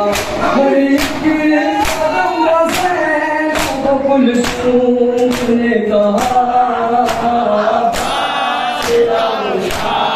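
A group of men chanting a noha, a Shia mourning lament, in chorus. Sharp, even strokes of hands slapping bare chests (matam) fall in time with it, a little more than one a second.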